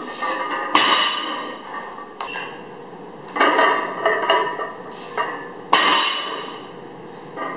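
Loaded 405 lb barbell with iron plates set down on the floor between deficit deadlift reps: about five sharp metal clanks a second or two apart, each ringing on briefly.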